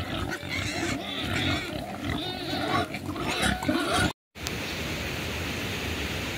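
A herd of pigs and piglets grunting and squealing, many calls overlapping. About four seconds in the sound cuts out for a moment and gives way to a steady rushing noise.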